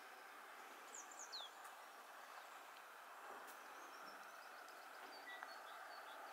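Near silence: a faint steady background hiss with a few faint, high bird chirps, including a quick run of falling notes about a second in.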